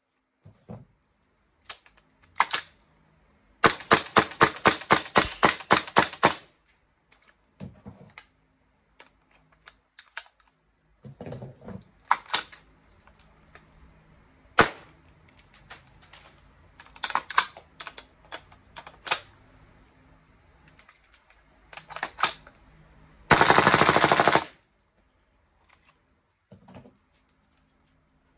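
Golden Eagle M4A1 gas blowback airsoft rifle firing: a single shot, then a quick string of about a dozen shots at roughly five a second, then single shots spaced through the middle. Near the end comes a fast continuous burst lasting about a second. Fainter clicks from handling the rifle come between the shots.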